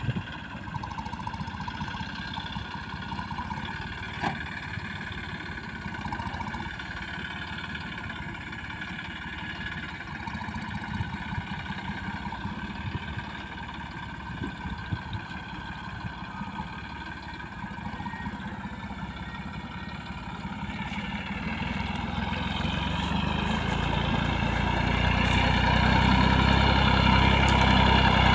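Massey Ferguson 9500 Smart 58 HP tractor's diesel engine running steadily under load while pulling a plough, distant at first and growing louder over the last several seconds as the tractor approaches.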